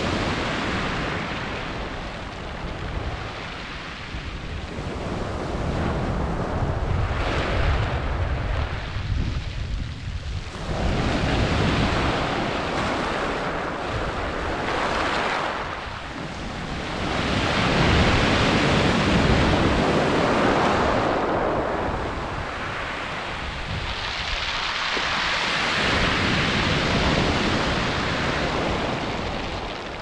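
Sea waves breaking and washing up and back over a pebble shingle beach, the surf hiss swelling and fading every several seconds in repeated surges.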